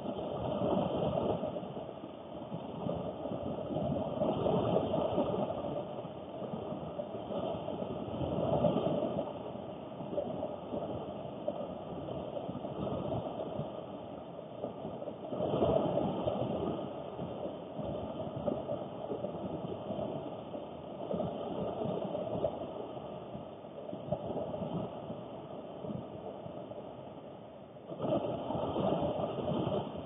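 Heavy storm rain pouring onto a stationary car's roof and windows, heard from inside the car, swelling and easing in gusts every few seconds.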